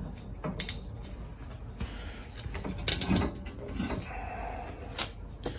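Plastic cable ties being pulled tight around a copper pipe and plastic spacer: a few short ratcheting zips and clicks, with a louder knock about three seconds in.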